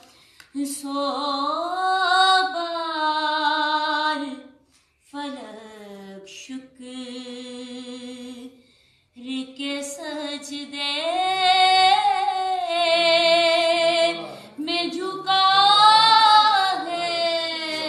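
A woman singing a naat solo with no accompaniment: long held notes that waver and slide between pitches, with two short breaks for breath, near the start and about halfway through.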